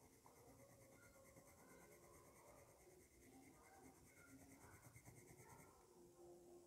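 Faint scratching of a water-soluble colour pencil shading back and forth on rough-textured watercolour paper.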